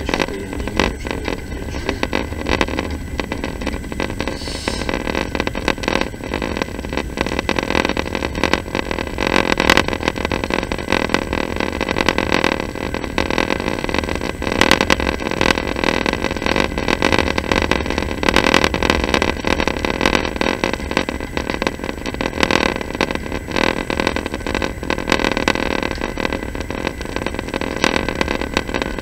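Passenger train running along the track, heard from inside the carriage: a steady rumble of wheels on rails with continual clicking and rattling.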